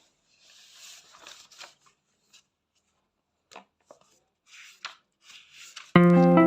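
Soft, scattered rustling and scraping of paper and study things being handled, with a few short clicks. Guitar music starts loudly near the end.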